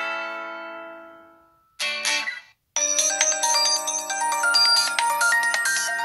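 LG G6 ringtones: one ringtone's last chord rings out and fades away over the first two seconds, a short snippet of another tone plays, and after a brief gap a new melodic ringtone of quick bright notes starts about three seconds in.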